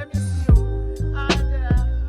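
Hip-hop/R&B instrumental beat, with a deep steady bass and sharp drum hits. The level drops briefly right at the start, then the beat comes back in.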